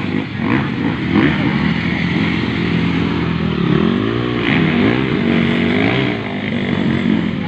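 Motocross dirt bike engines revving as riders race around the track. The engine pitch climbs and falls repeatedly from about four seconds in.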